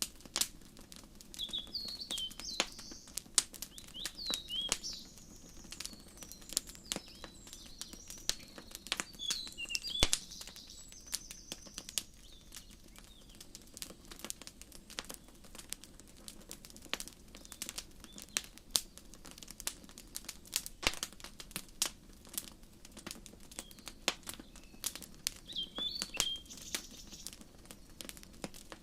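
Wood fire crackling in a fireplace, with frequent sharp pops and snaps throughout. Birds chirp over it, busy through roughly the first ten seconds and again briefly near the end.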